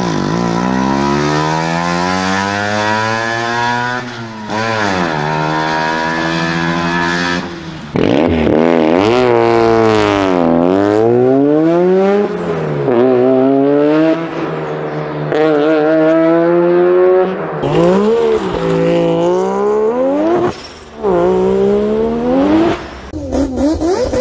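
Wankel rotary engines revving up and down, one clip after another. A single-rotor NSU Spider runs first, a two-rotor takes over about eight seconds in, then come engines with more rotors, a four-rotor near the end.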